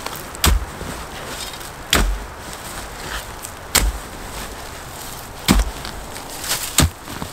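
Small steel multitool shovel blade chopping into forest-floor soil while digging a hole. Five sharp strikes come about every one and a half to two seconds.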